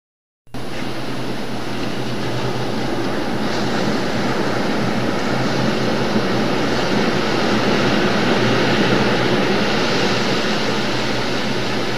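Steady drone of a boat's engine mixed with wind and sea hiss, starting suddenly about half a second in after silence.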